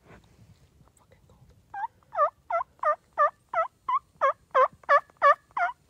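A run of about eleven loud turkey yelps, roughly three a second, starting about two seconds in.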